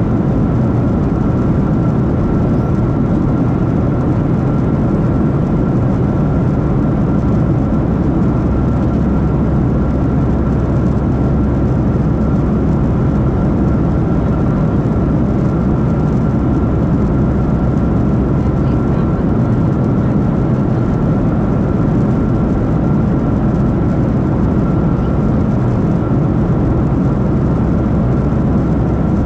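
Steady in-flight cabin drone of a Boeing 737-700 heard from a window seat: a deep, even roar of its jet engines and the airflow over the fuselage, with a thin steady whine above it.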